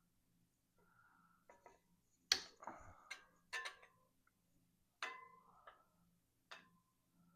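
A string of sharp clicks and light metallic clinks as tools and bike parts are handled, several with a brief ring, at irregular intervals starting about two seconds in.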